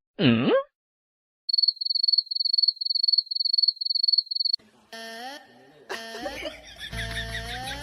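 A brief swooping glide that falls and rises, then a high steady chirp pulsing about three times a second for about three seconds. Music with sliding tones comes in near the end.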